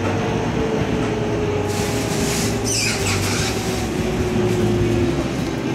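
Electric train running, heard from on board: a steady low rumble with a thin motor whine that slowly falls in pitch as the train slows. A brief hiss rises and fades about two to three seconds in.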